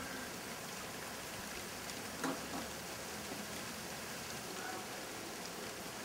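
Small hail pellets pattering steadily on the ground, with one brief knock about two seconds in.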